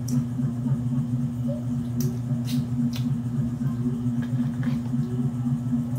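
A steady low hum throughout, with a few sharp clicks and cracks as crab shell is picked apart by hand.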